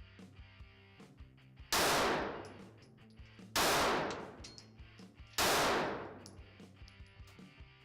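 Walther CCP 9mm pistol fired three times, about two seconds apart, each shot followed by a short echoing tail.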